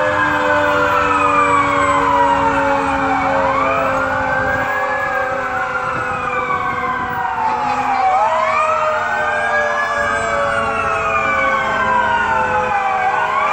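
Several fire apparatus sirens wailing together, each sweeping up and down in slow cycles of about four to five seconds, overlapping out of step with one another.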